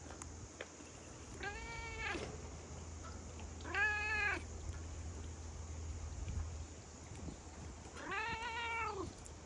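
A fluffy long-haired white-and-orange cat meowing three times, each meow under a second long and rising then falling in pitch, the middle one loudest.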